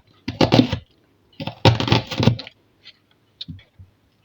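Kitchen knife cutting through a peeled onion on a board: two bunches of crisp, crunching cuts, then a few light knocks.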